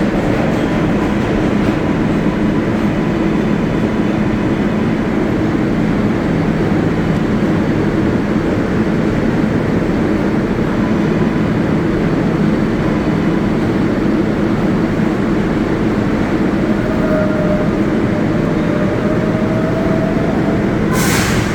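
New York City Subway 7 train running in the underground Flushing–Main Street terminal: a steady, loud rumble of motors and wheels, with a slightly rising whine near the end and a short burst of air hiss just before the end.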